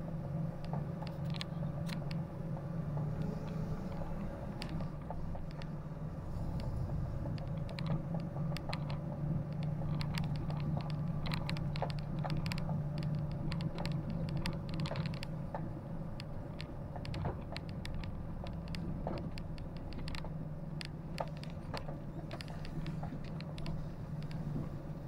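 A vehicle engine running with a steady low hum, with scattered clicks and creaks of rattling throughout.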